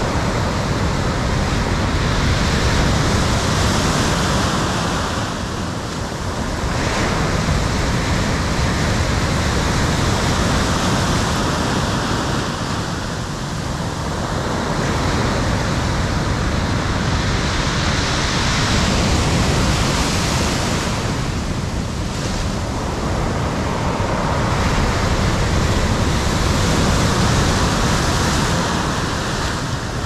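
Stormy sea surf: heavy waves breaking and churning into whitewater, a dense wash of noise that swells and eases every several seconds.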